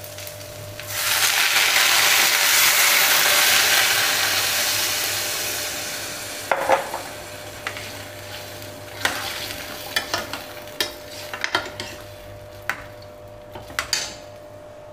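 Water poured into a hot stainless steel pan of frying rice, black chana and potatoes. It starts a loud hiss of sizzling about a second in, which slowly dies away over several seconds. Then a steel ladle clinks and scrapes against the pan as the mixture is stirred.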